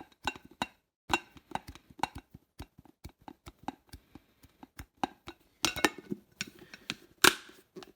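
Plastic lunchbox lid handled on its glass container: a run of small clicks and knocks of plastic against glass, with a loud sharp snap near the end as a hot-glue-repaired side clip is worked.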